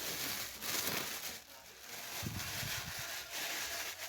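Packaging being handled: crinkling and rustling, with a few dull knocks about two seconds in.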